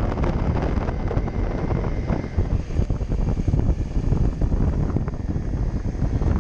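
Wind buffeting the microphone of a camera on a moving Honda CRF250 Rally, with the motorcycle's single-cylinder engine running underneath as it rides at speed.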